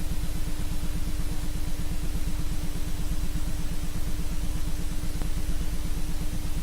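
A steady, engine-like drone pulsing rapidly and evenly, with a constant hum tone above it and a hiss over all.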